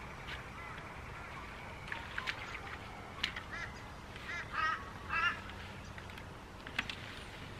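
Birds calling: short, nasal, honking calls in bunches, the strongest a little past the middle, with a few sharp clicks in between.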